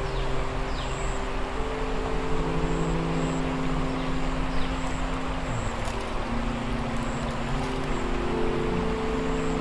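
Sustained drone of low held notes that shift pitch every few seconds, over the steady rush of creek water.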